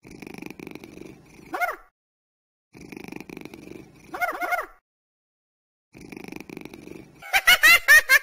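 Cat purring in three spells, each ending in a short rising-and-falling squeaky call. Near the end comes a louder, fast run of high giggling calls.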